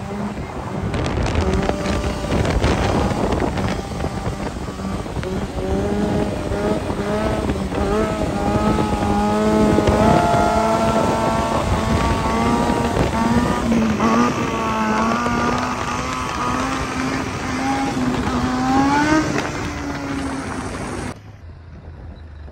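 Motorcycle engine running as the bike is ridden, with wind on the microphone. Its pitch holds steady, then climbs gradually near the end before dropping back, and it cuts off suddenly.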